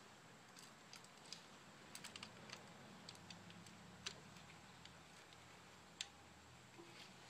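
Faint, scattered light metallic clicks and taps of a timing chain being worked by hand onto its sprockets and plastic guides on a Saab B235R engine. There is a quick cluster of clicks about two seconds in, and the sharpest single click comes about six seconds in.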